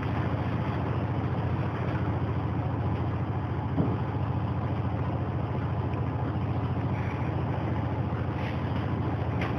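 A running heater giving off a steady low mechanical drone, with a single brief knock about four seconds in.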